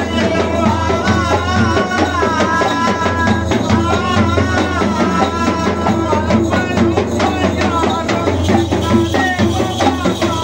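Ritual drumming: barrel drums played fast in a driving rhythm, with jingling percussion and a wavering melodic line above.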